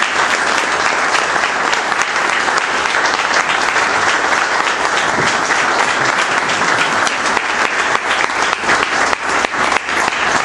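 Audience applauding, a dense run of many hands clapping that thins into more scattered claps near the end.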